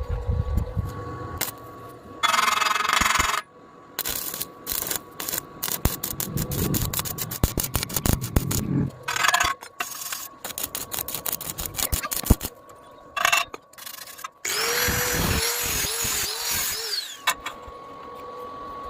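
Metalworking tool sounds: short bursts of a power tool among many sharp clicks and knocks, then a longer loud stretch with a warbling tone about fifteen seconds in.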